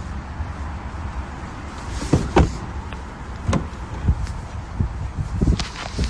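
Car doors being handled: a run of clunks and knocks starting about two seconds in, the loudest near the start of the run. Under them is a steady low rumble of wind on the microphone.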